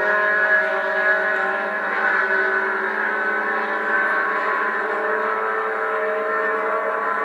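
Race car engines running around the circuit, several engine notes at once gliding up and down as the cars accelerate and lift through the turns.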